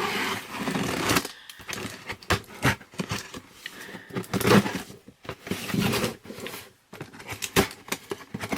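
A cardboard subscription box being opened and its contents handled: irregular rustling, crinkling, tearing and small knocks of cardboard and packaging.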